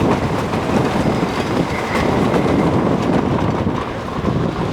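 Wooden roller coaster train running along its wooden track, with the wheels rumbling and clattering over the rails.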